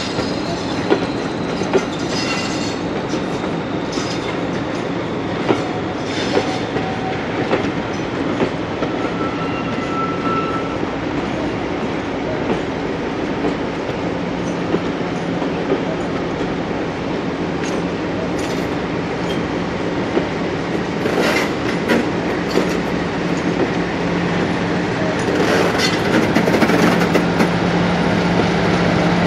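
Passenger coaches rolling slowly past over rail joints and pointwork, wheels clicking with a brief thin squeal now and then. About halfway through a diesel engine's steady drone comes in and grows louder toward the end as the Class 56 locomotive at the rear of the train draws level.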